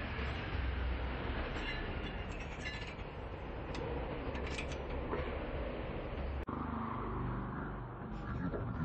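Light metallic clicks and clinks of brake pads being fitted into a disc-brake caliper bracket, over a steady low background rumble. The clicks come in two small clusters, about two seconds in and again near the middle, and the sound drops out for a moment about two-thirds of the way through.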